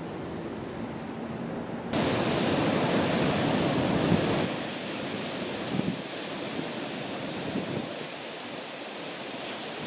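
Ocean surf washing with wind on the microphone. The noise rises sharply about two seconds in and eases a couple of seconds later.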